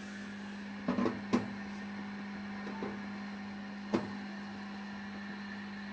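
A few short knocks and clinks of kitchen things being handled, about four in all, the sharpest about a second and a half in and again about four seconds in. Under them runs a steady low electrical hum.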